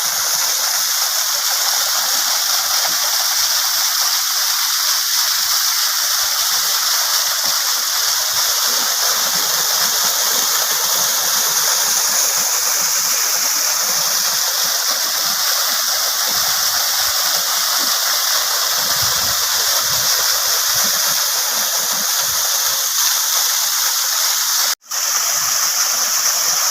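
Waterfall, a steady rush of falling water, running full after recent rains. The sound cuts out for an instant near the end, then resumes.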